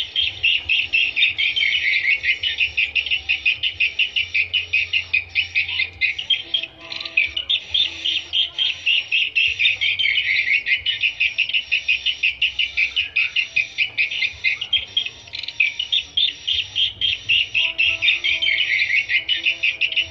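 Swiftlet lure sound: a loud, unbroken stream of high, rapid chirping calls pulsing about four times a second. It is the call recording played to draw swiftlets to a nesting house.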